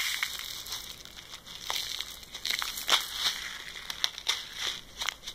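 A small plastic bag crinkling and crackling as it is shaken and tipped, pouring green flakes of recycled button plastic into a plastic cup. Irregular sharp crackles come throughout.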